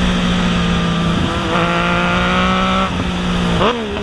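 Yamaha MT-09's three-cylinder engine running hard at high revs under heavy wind rush on the microphone. Near the end the revs drop, then climb sharply.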